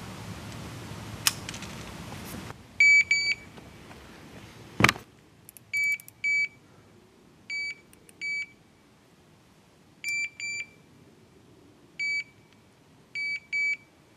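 Electronic carp-fishing bite alarm giving short single high-pitched bleeps, about a dozen of them, mostly in quick pairs at irregular gaps: the line is twitching over the alarm's sensor rather than running off in a full take. A single sharp click comes about five seconds in.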